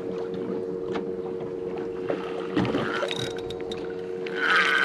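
Steady hum of a boat engine, with wind noise on the microphone. Near the end a spinning fishing reel is cranked, adding a higher, steady whirring whine.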